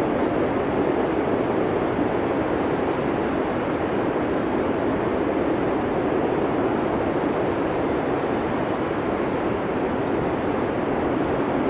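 Blizzard wind blowing steadily: an even, unbroken rushing noise with no gusts or pauses.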